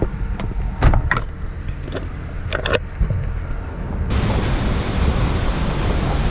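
Low rumble of a car in motion with a few short knocks or rattles. About four seconds in it cuts abruptly to a steady rushing noise.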